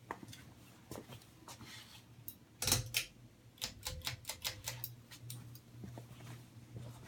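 Harbor Breeze Builder's Best ceiling fan running on medium speed with a steady low motor hum. Scattered clicks and ticks sound over it: a louder knock a little under 3 seconds in, then a quick run of clicks just past the middle.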